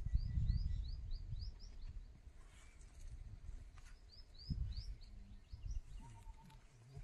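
A bird calling in a quick series of short, high, upward-sweeping chirps, one run at the start and a shorter one about four and a half seconds in, over low rumbling outdoor noise.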